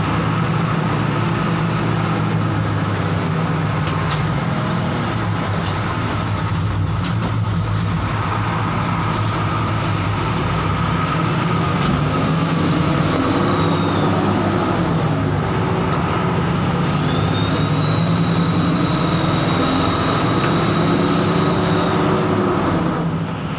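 Bus diesel engine running as the bus drives along, heard from on board. Its pitch rises and falls twice in the second half as it revs through the gears.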